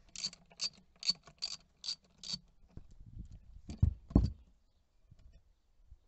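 Ratchet driving a T20 Torx bit clicking six times at a steady pace, about two and a half clicks a second, as it loosens a paddle-shifter screw on a steering wheel. About four seconds in come two louder dull knocks.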